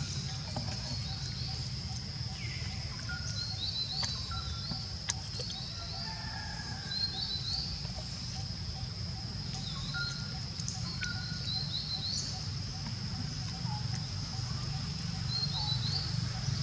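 Outdoor woodland ambience: birds chirping in short repeated calls, some with falling sweeps, over a steady high-pitched insect drone and a low rumble, with a few sharp clicks near the middle.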